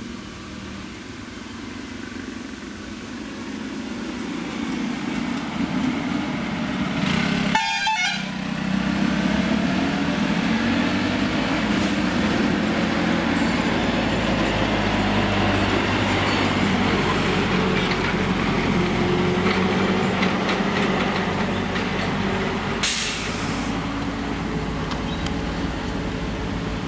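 Truck engine running steadily as the lorry rounds a hairpin bend on a hill road, louder from about eight seconds in. A short burst of hiss near the end.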